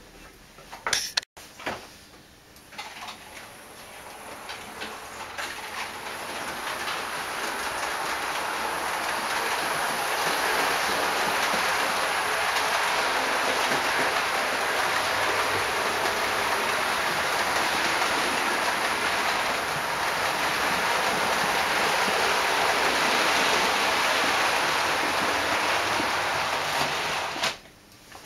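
Model trains running on a model railway layout: a steady rushing rumble of wheels on track and small motors. It builds over the first few seconds, holds, and cuts off suddenly near the end, with a few sharp clicks at the start.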